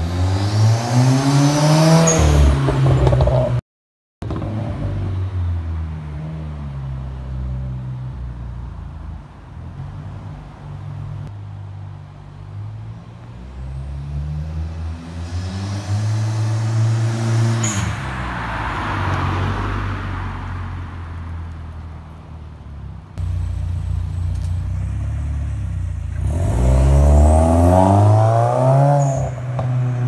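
2016 Subaru WRX's turbocharged 2.0-litre flat-four, on a stage 2 setup with catless downpipe and cat-back exhaust, accelerating hard past three times. With each pass the engine note climbs and then falls away.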